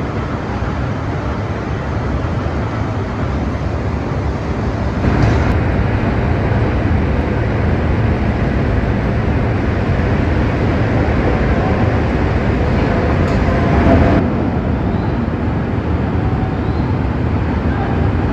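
Loud, steady noise of heavy factory machinery in a steel recycling works, changing abruptly about five seconds in and again near fourteen seconds.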